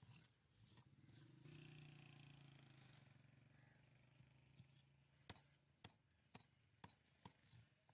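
Very faint sound. A low steady hum fills the first half, then come about five sharp ticks roughly half a second apart as a large curved fish-cutting knife strikes the fish and the wooden chopping block.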